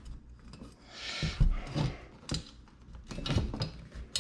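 Scattered light knocks, clicks and rubbing, as of tools and hardware being handled and set down, with a couple of firmer knocks in the middle.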